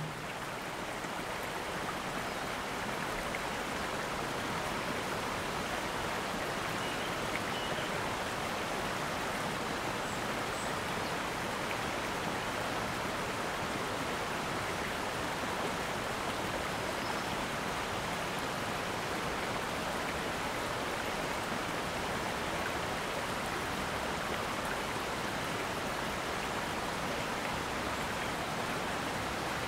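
Steady rushing of a shallow mountain river flowing over a stony bed.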